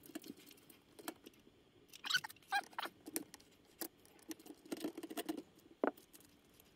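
Light clicks, taps and scrapes of small metal parts being handled as the video drum's mounting screws, springs and washers are taken out of a Sony SL-HF100 Betamax VCR. A few short squeaks come about two seconds in, and a brief knock comes near the end.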